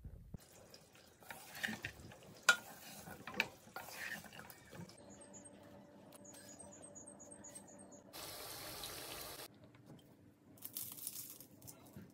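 Faint kitchen food-preparation sounds: scattered clicks and knocks of handling, then a quick run of high chirps, and about eight seconds in a steady hiss lasting just over a second.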